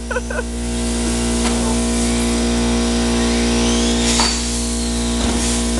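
Radio-controlled car's electric motor whining, rising in pitch a couple of times as it speeds up, over a steady hum and hiss.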